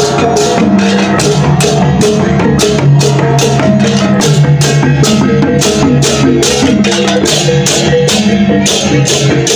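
Balinese gamelan baleganjur processional ensemble playing: a fast, steady beat of cymbal clashes over sustained gong tones, drums and short melodic figures.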